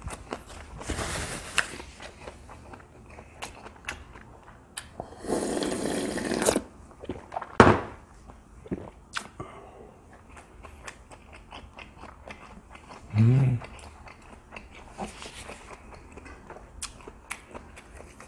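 A person chewing a mouthful of food close to the microphone, with many small wet mouth clicks and chopstick taps. About five seconds in comes a breathy rush of noise lasting over a second, then a sharp click, and near thirteen seconds a short low hum of the voice.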